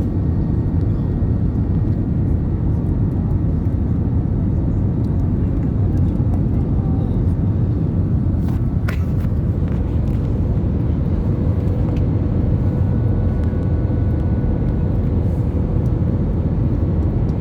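Steady low rumble inside the cabin of an Airbus A320 from its engines and air system, with a faint constant whine, and a single sharp click about nine seconds in.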